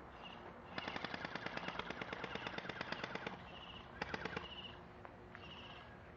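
Automatic airsoft gun firing a long rapid burst of about two and a half seconds, then a second short burst about a second later.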